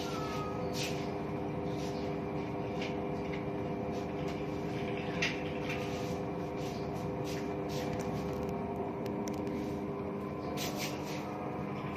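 Toshiba washing machine running with a steady hum made of several held tones, and scattered light clicks and ticks.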